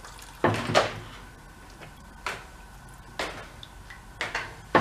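Sharp knocks and clunks of a lawn mower and gear being handled on a workbench: two close together about half a second in, then single knocks roughly once a second.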